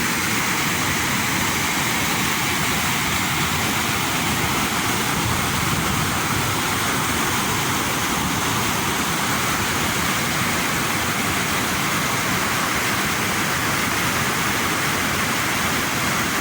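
Rushing water, such as a waterfall or fast mountain stream, making a loud, steady, unbroken roar of noise.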